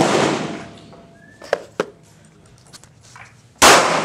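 Two pistol shots from a Smith & Wesson Bodyguard 380 .380 ACP pocket pistol, one right at the start and one about three and a half seconds later, each trailing off over most of a second. Two sharp clicks fall between the shots.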